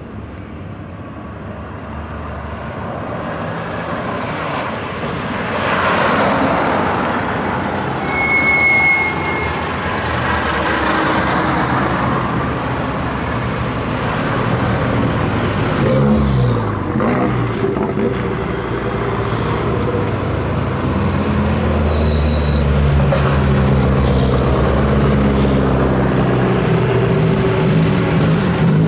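Hillclimb race car engine approaching, getting steadily louder, with the revs dropping and climbing again about halfway through as it changes gear, then pulling hard at steady high revs.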